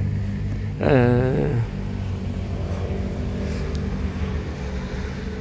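A short drawn-out voiced sound, like a hum or sigh rising then falling in pitch, about a second in, over a steady low rumble.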